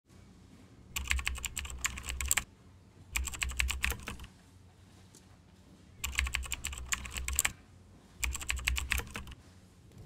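Rapid typing on keys: four bursts of quick key clicks, each lasting about a second or a little more, separated by short pauses.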